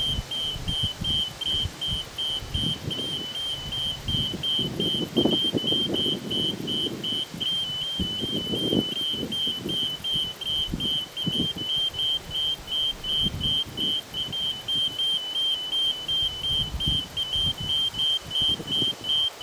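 Railway level-crossing warning signal beeping, a high electronic beep repeating evenly about two to three times a second while the red light flashes, the crossing's warning that a train is approaching. Irregular low rumbling comes and goes underneath.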